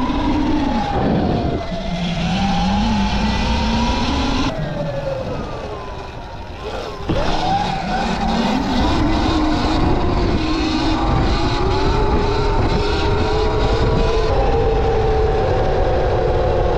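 Sur-Ron electric dirt bike being ridden. Its motor and drivetrain whine rises and falls in pitch with speed, dropping as it slows about five seconds in and climbing again as it pulls away about two seconds later, over a steady rush of wind and road noise.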